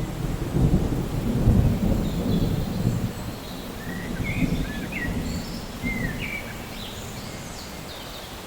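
Rain with rolling thunder: a low rumble, strongest in the first few seconds and easing off, under a steady hiss of rain. A few short high chirps come through in the second half.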